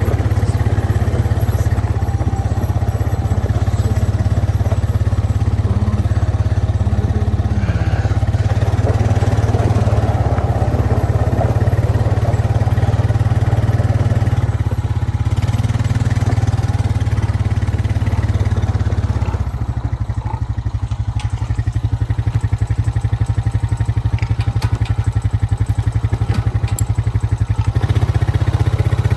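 A vehicle engine running steadily. It drops to a lower, pulsing idle about twenty seconds in and picks up again near the end.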